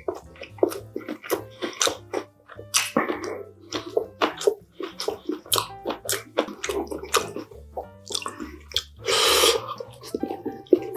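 Close-miked eating sounds: a person chewing, with irregular wet smacks and clicks of the mouth, and one longer noisy burst about nine seconds in.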